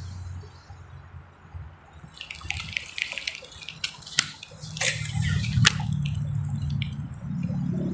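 Water splashing and sloshing at a pond surface: a run of sharp splashes and clicks from about two to six seconds in, over a low steady hum.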